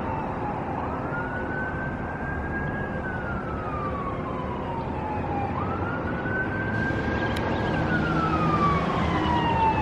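A siren wailing in a slow cycle: a quick rise to a held high note, then a long fall, repeating about every five seconds and growing slowly louder.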